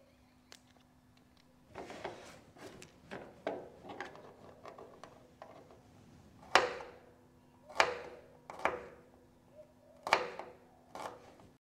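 Knife chopping garlic on a cutting board: light taps and scrapes at first, then a few sharper chops in the second half. The sound cuts off just before the end.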